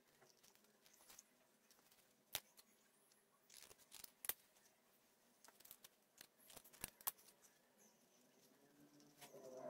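Faint handling sounds of hand-sewing an elastic shoe strap: light rustling and a few sharp clicks, with scissors snipping about four seconds in.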